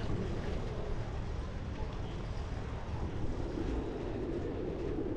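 Steady rumble of a bicycle rolling over a brick-paved street, with the low noise of riding in the open air.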